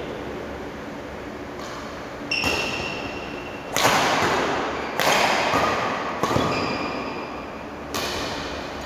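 Badminton rackets hitting a shuttlecock back and forth in a doubles rally: a series of sharp strikes, about one every second or so, several of them hard hits. Each strike echoes in the hall.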